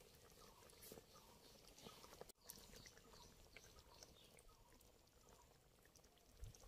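Near silence, with faint scattered ticks.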